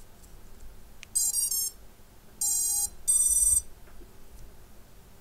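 A quadcopter's brushless motors sounding the ESC power-up tones as the battery is connected through a smoke stopper: a quick run of notes about a second in, then two beeps. This is the normal start-up signal of ESCs powering up without a short.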